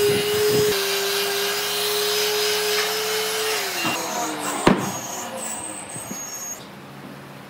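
Electric square-pad palm sander running on solid wood with a steady hum, then switched off and winding down in a falling pitch about three and a half seconds in. A single sharp knock follows about a second later.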